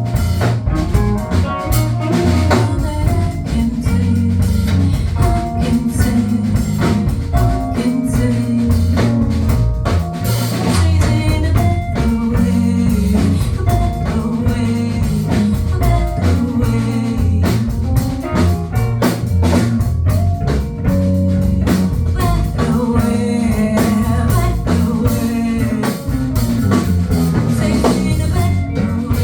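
Live band playing a song: drum kit keeping a steady beat under bass, guitar and keyboard, with singing at times.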